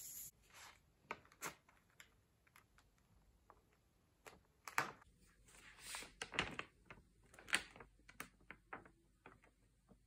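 Sheet of printing paper being handled and peeled off an inked metal plate: short, irregular crackles and rustles with light clicks and taps, the loudest about five to eight seconds in. A steady rubbing from hand-burnishing the paper stops right at the start.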